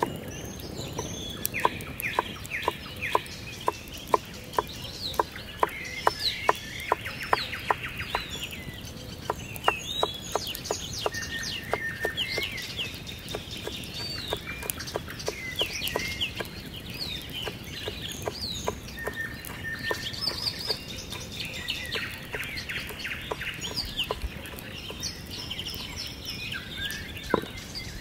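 Chef's knife chopping green onions on a wooden cutting board: a steady run of sharp chops, a few a second, stopping about two-thirds of the way through. Birds chirp throughout.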